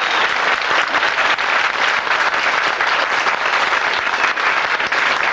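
A crowd applauding: dense, steady clapping from many hands.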